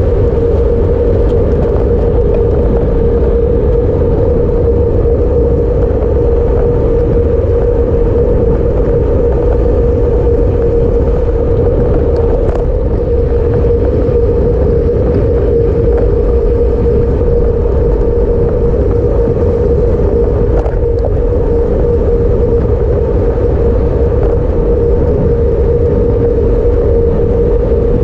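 Steady rush of wind and road noise on a camera mounted under a racing bicycle's handlebars at speed: a continuous low rumble with a constant hum running through it.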